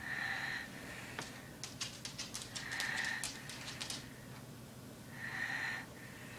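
Baby snoring: three short snoring breaths about two and a half seconds apart, with a run of quick clicks around the middle.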